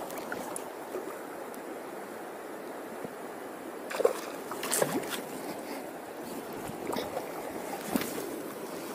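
River water running steadily past, with a hooked fish splashing at the surface about four seconds in, twice in quick succession, and another smaller splash near the end.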